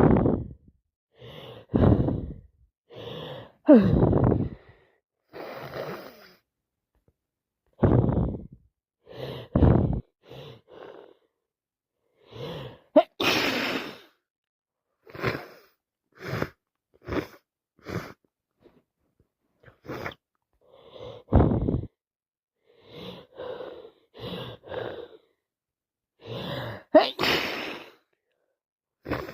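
A woman with a heavy cold sneezing and sniffling over and over, in short bursts of breath a second or so apart. Two sharper, brighter sneezes stand out, about midway and near the end.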